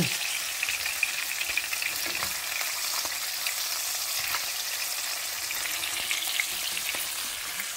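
Chicken patties frying in hot olive oil and butter in a skillet: a steady sizzle with fine crackling of the fat.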